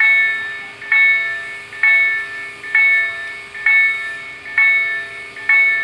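Level crossing warning bells striking about once a second, each ring fading before the next. They are sounding with the barriers down and the red lights flashing, the warning of an approaching train.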